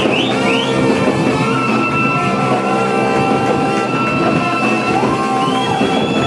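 Music with held instrument notes, and a few short rising slides about half a second in.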